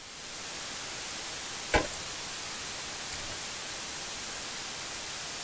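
A steady, even hiss of noise that fades in at the start, with one short knock nearly two seconds in.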